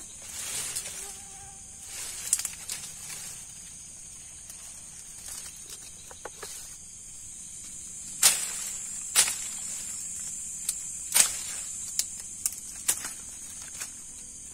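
Night insects, a steady high-pitched chirring chorus, with a scatter of sharp clicks and knocks, the loudest about eight and eleven seconds in.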